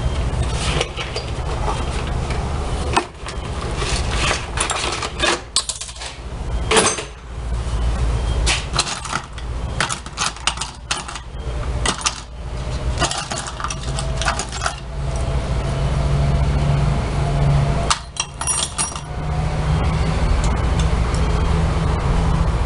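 Repeated clinks and knocks of small metal parts and tools being handled and set down, over a steady low hum. The clinking thins out after about 19 seconds, while a low drone grows louder.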